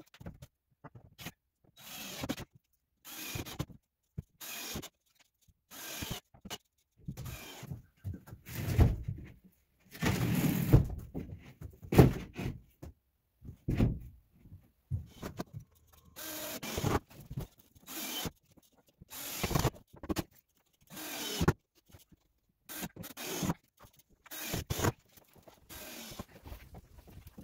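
Carpentry work noise on OSB panels: rubbing and scraping of wood and tools in short bursts, each broken off by a brief silent gap. The loudest stretch comes about a third of the way in.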